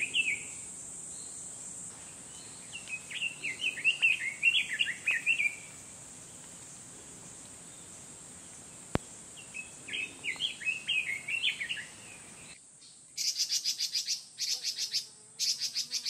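Red-billed leiothrix singing three quick, warbling phrases, the male's song to call a female, over a steady high hiss. After a change of scene about 12 seconds in comes a fast, dry, buzzy rattle of repeated notes, the leiothrix's call note.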